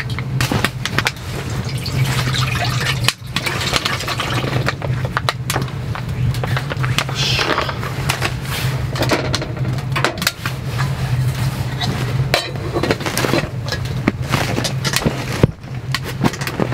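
Small clinks, knocks and rattles of a metal camping pot being handled as oden is put in and the lid set on, over a steady low hum.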